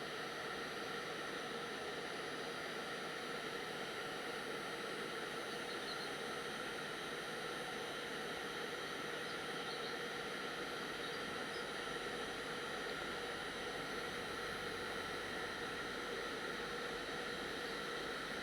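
Electric heat gun blowing steadily with a very quiet, even hiss and whir, shrinking heat-shrink tubing over crimped wire connectors.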